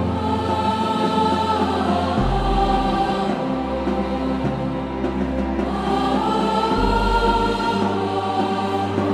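Background music: a choir singing slow, held chords over a low bass, the chord changing twice.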